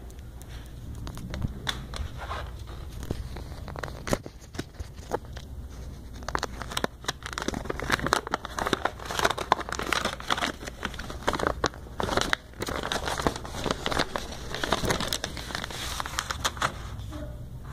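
Sheets of printer paper rustling and crinkling as they are handled, with scattered sharp clicks and knocks.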